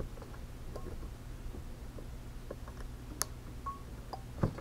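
Quiet hand soldering of resistor leads on a circuit board: a steady low hum with a few faint light clicks and ticks, and one sharper click about three seconds in.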